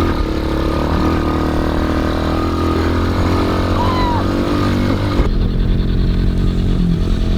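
Quad bike engine running steadily under way. About five seconds in the sound shifts to a lower, duller engine note.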